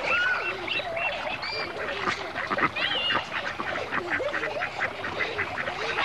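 Ducks quacking amid other bird calls: a dense run of short calls and chirps, with a quick series of repeated calls in the middle.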